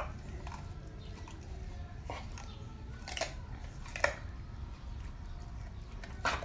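Pit bull chewing raw green vegetable leaves, with irregular crisp crunches every second or so; the loudest come about three and four seconds in.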